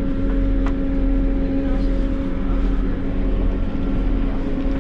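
Diesel passenger train's underfloor engine running steadily, heard inside the carriage as a constant low rumble with a steady droning hum.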